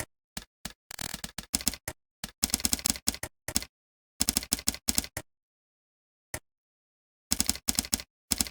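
Computer keyboard typing in short bursts of quick keystrokes separated by pauses. There is a longer pause after about five seconds with one single key press in it, then another short burst near the end.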